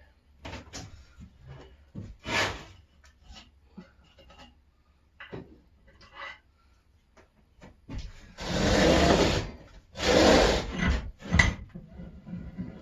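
Old rusty bench vise being worked in and out by hand: dry metal sliding parts scraping and rubbing, with scattered clicks and short scrapes, then two long scraping strokes near the end, the loudest. The back of the vise is dry and still stiff.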